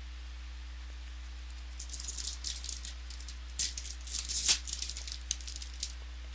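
Crinkling and tearing of a foil trading-card pack wrapper as it is opened. It comes as a run of quick, crisp crackles that start about two seconds in and stop shortly before the end, over a steady low electrical hum.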